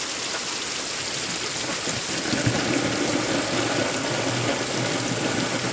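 Heavy rain pouring down steadily, with a deeper rushing rumble joining in about two and a half seconds in.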